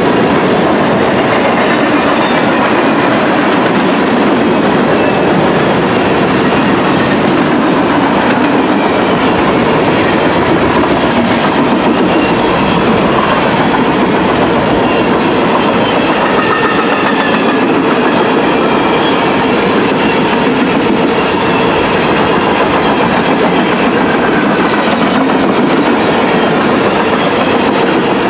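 Freight cars rolling past: a steady, loud rush of steel wheels on the rails with a clickety-clack over the rail joints.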